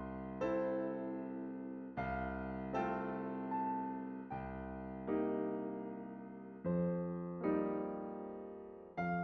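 Slow, soft solo piano music: notes and chords struck about once a second, each left to ring and fade before the next.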